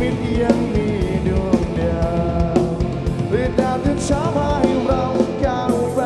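Live rock band playing a song, with a steady drum beat under the melody and a singing voice.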